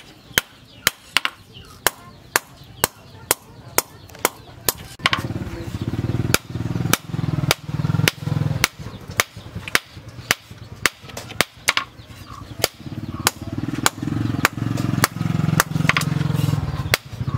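Hand hammer striking a red-hot steel blade on a steel post anvil in a steady rhythm of about two blows a second while the blade is forged into shape. From about five seconds in, a low steady rumble runs underneath.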